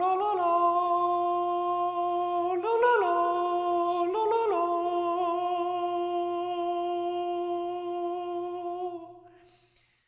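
A voice humming one long, steady note, with two short pitch wobbles, stopping abruptly about nine seconds in.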